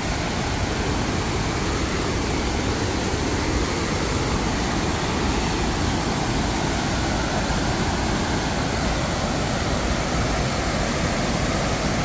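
Steady rush of a waterfall on a river in flood after heavy rain.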